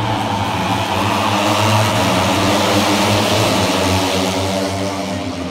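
A pack of Moto3 racing motorcycles, with 250cc single-cylinder four-stroke engines, accelerating hard away from the race start and passing along the straight, many engines at high revs together. The sound swells about two seconds in and eases off near the end.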